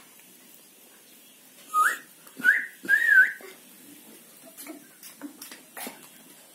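Someone whistling three short notes about two to three seconds in, each sliding upward, the last one wavering before it rises.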